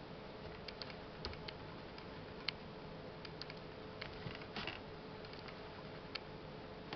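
Faint scattered clicks and light taps from a wooden skewer and fingertips working perlite-mixed potting soil in a clear plastic tray, with a brief rustle about four and a half seconds in, over a faint steady hum.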